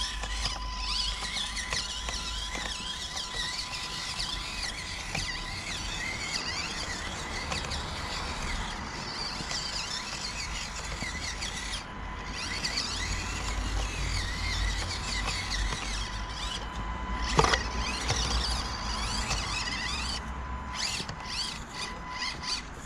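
Axial SCX24 Deadbolt micro RC crawler driving: its small electric motor and gears whine, the pitch wavering up and down with the throttle over a steady thin tone. One sharp click sounds about 17 seconds in.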